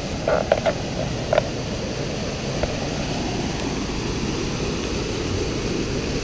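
Floodwater of the swollen Neuse River rushing past in a steady low rush, with a few brief, louder sounds near the start.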